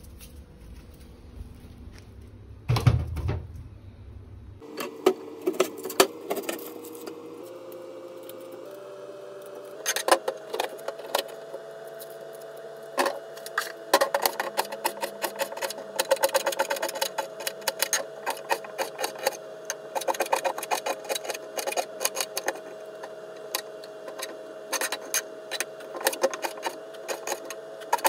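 Onions handled in a crate with a thump about three seconds in, then a kitchen knife dicing onion on a plastic cutting board: quick sharp taps that become dense and rapid from about ten seconds in.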